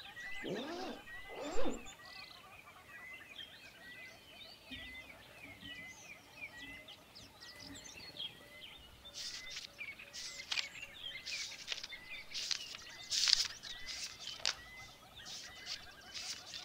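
Small birds chirping, one short chirp repeated about every half second or so throughout. A brief rasp near the start comes as a cloth bag is opened, and crisp paper rustles follow in the second half as the pages of a manuscript are turned.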